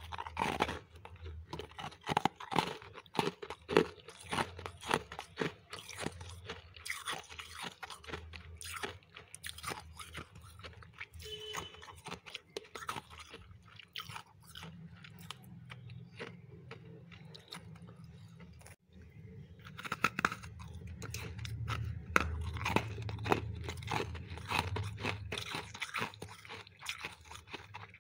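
Close-up chewing of refrozen freezer frost chunks: a dense run of crisp, irregular crunches. They thin out to a quieter spell about halfway through, then come thick again.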